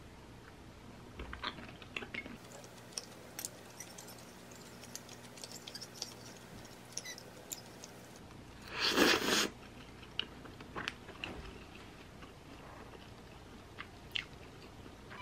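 A person eating pasta: a fork and spoon clicking and scraping against a ceramic plate, with quiet chewing. One louder, noisy sound of about half a second comes about nine seconds in, as a twirled forkful goes to the mouth.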